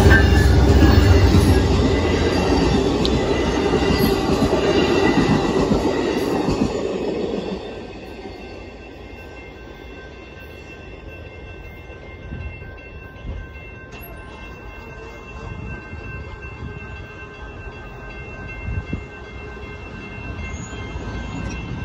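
Amtrak Texas Eagle passenger train passing a grade crossing: the diesel locomotive and its cars go by loudly for the first seven or so seconds, then the sound drops off sharply. After that the crossing's warning bell keeps ringing steadily, with the gates still down.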